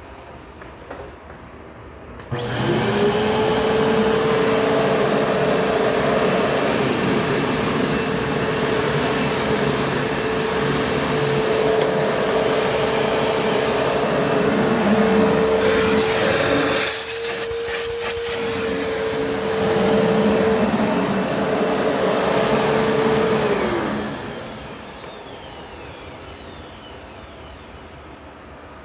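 Kenmore Whispertone upright vacuum cleaner switched on about two seconds in. Its motor runs with a steady whine for about twenty seconds, with a brief dip partway through. It is then switched off and winds down slowly in a long wind-down. The owner says its belt needs replacing because it was stalling.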